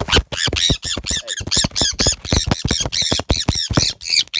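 Pet parrot squawking loudly and repeatedly in distress while restrained for a wing clip, a rapid string of harsh calls at about four a second.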